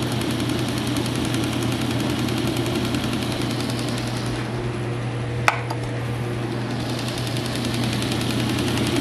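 Electric motor of a 1930s General Electric belt-drive refrigerator running and driving the compressor through a temporary link belt, with a steady hum and a fast mechanical rattle; the motor is turning the wrong way. A single sharp tick about halfway through.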